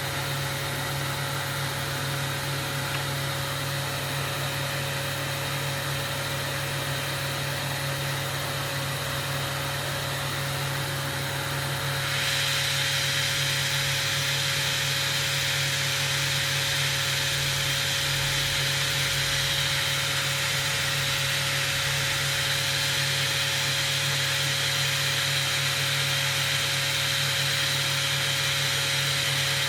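Steady hum of workshop machinery with a constant hiss. The hiss gets louder and brighter about twelve seconds in and then holds steady.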